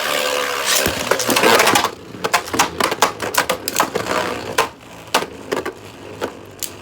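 Two Beyblades, a 3D-printed Agèma Ares and Guilty Longinus, spinning in the stadium with a whirring hum for about the first two seconds. After that they clash and bounce about: a long, irregular run of sharp clicks and clacks as the tops hit each other and the stadium wall.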